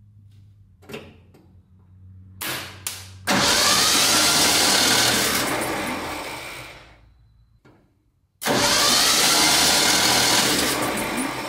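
Starter motor cranking the 1974 Ford F100's 302 V8, run by jumping the starter solenoid because the key won't crank it, in two bursts of several seconds each; each burst starts abruptly and dies away gradually. A few small clicks come before the first burst.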